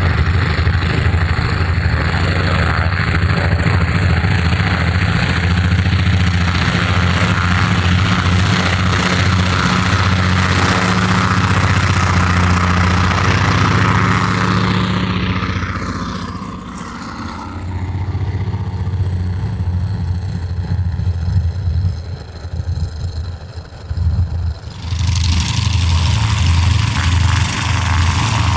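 Beechcraft TC-45 Expeditor's twin Pratt & Whitney R-985 radial engines running at low power with a steady, deep note. Around the middle the sound drops and turns choppy for several seconds, then comes back at full level.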